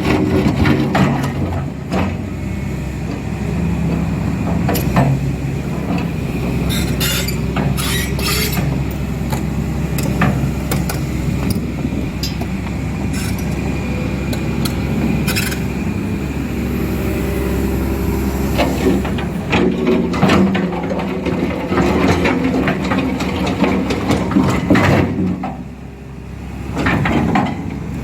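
Excavator's diesel engine running steadily, with scattered sharp knocks and clanks of work over it. The engine drops off briefly near the end, then picks up again.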